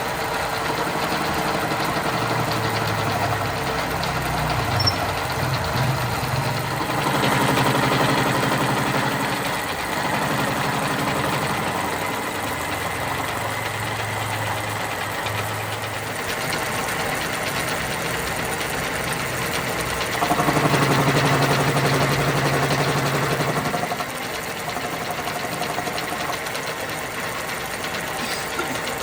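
A machine or motor running continuously, its low hum shifting in pitch and strength several times as if under changing load. It grows louder and higher for a few seconds about two-thirds of the way through.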